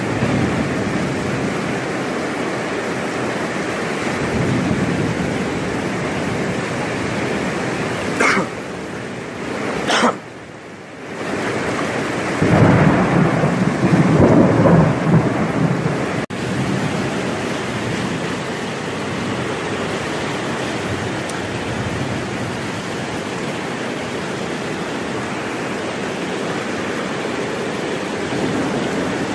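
Heavy rain pouring down steadily in a severe thunderstorm. About twelve seconds in, thunder rumbles loudly for a few seconds, and a couple of sharp cracks come just before it.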